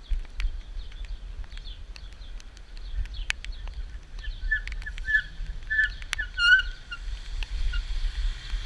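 Rain falling, with scattered sharp drips and a faint steady hiss over a low rumble. About halfway through, a small bird chirps a quick run of short notes.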